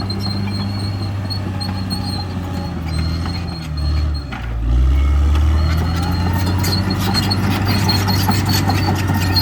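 CAT D6R XL bulldozer working, its diesel engine running steadily with the crawler tracks clanking and squealing. About four seconds in, the engine note sags briefly as it takes load, then picks back up.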